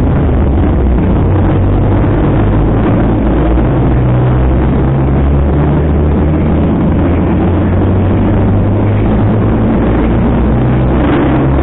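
Vehicle engine running with a steady low drone, its pitch shifting a couple of times.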